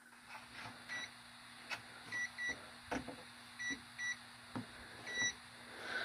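A multimeter's non-contact voltage tester giving about six short, high beeps, some in close pairs, the signal that it is picking up live voltage on the wiring. A few light clicks of handling fall between the beeps.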